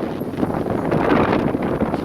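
Strong gusty storm wind blowing across the microphone: a loud, continuous rush.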